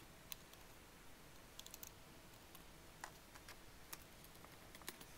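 Near silence broken by faint, scattered light clicks and taps as an instrument-cluster circuit board is handled.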